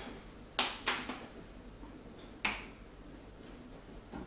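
Three sharp clicks from handling an oil bottle and spoon while oil is poured into the cooker bowl: two close together about half a second in, and one more about two and a half seconds in.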